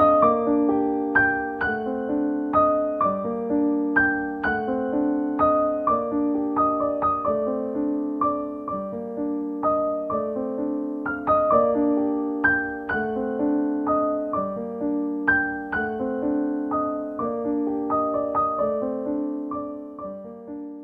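Background piano music: a gentle, repeating pattern of struck notes, fading out near the end.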